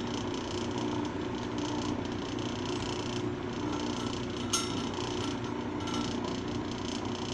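Lapidary trim saw running steadily with its motor hum while the blade is out of the rock. One sharp clink about halfway through.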